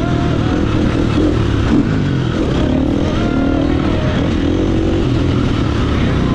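2017 KTM 350XC-F's 350 cc single-cylinder four-stroke engine revving hard under race riding, its pitch rising and falling repeatedly with throttle and gear changes.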